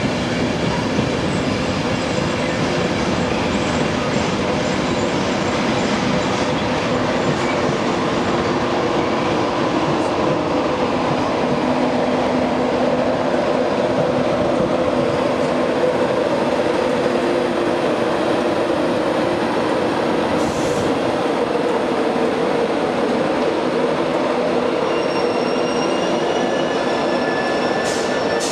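InterCity 225 train, Mark 4 coaches hauled by a Class 91 electric locomotive, running slowly through the station: a steady rumble of wheels on rail with a humming drone. A few thin high squealing tones join in near the end.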